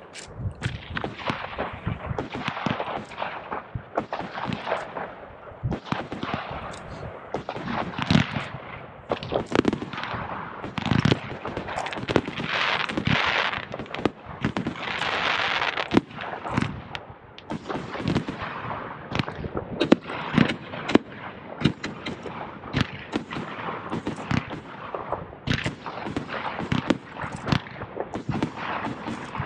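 Aerial fireworks display with shells bursting in a rapid, continuous string of sharp bangs and crackles. A denser stretch of continuous crackling hiss comes about halfway through.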